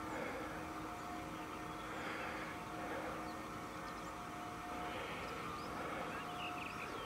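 Faint, steady hum of distant engines, holding a couple of low tones, with a few faint high chirps near the end.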